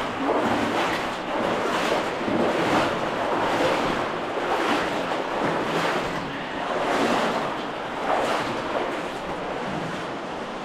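Water sloshing and splashing as people wade through a deep cave stream, swelling with each stride roughly every second or so.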